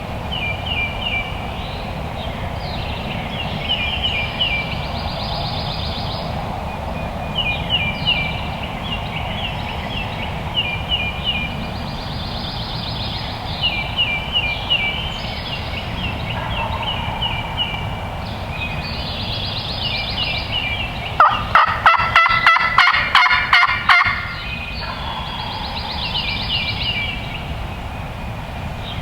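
Songbirds singing repeated high, chirping phrases every couple of seconds in a dawn chorus, and about three quarters of the way through a wild turkey gobbles once, loud and rattling for about three seconds.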